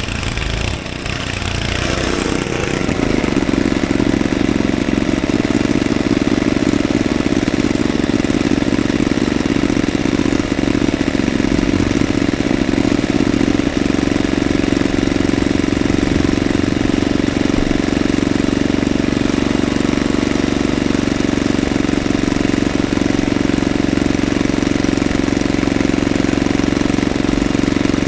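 Craftsman 5/24 snowblower's small engine running steadily at working speed, building up over the first few seconds and then holding even.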